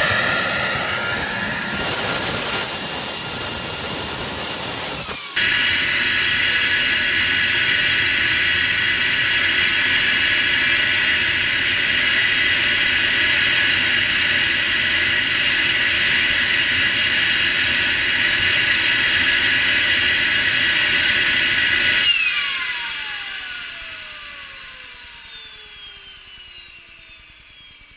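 Homemade gas turbine built from a Holset WH2D turbocharger running with a loud, rough rush and a high whistle for the first five seconds, then with a steady high whine. About two-thirds of the way through it is shut down, and the whine falls in pitch and fades as the turbine spools down.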